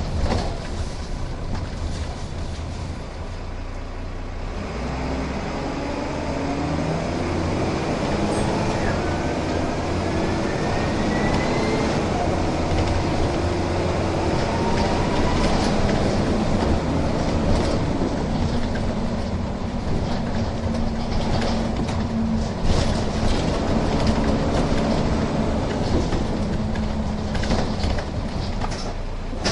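Marshall-bodied Dennis Dart single-deck bus's diesel engine heard on board, pulling away: the engine note climbs through the gears from about four seconds in, with a thin rising whine around ten seconds, then runs steadily under way.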